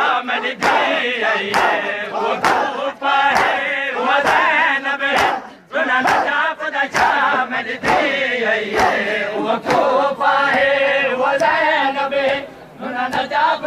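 Crowd of men chanting a Saraiki noha together, with sharp strikes at a roughly even pace of about one a second, typical of the hand strikes of matam (chest-beating in mourning). The chanting drops off briefly twice.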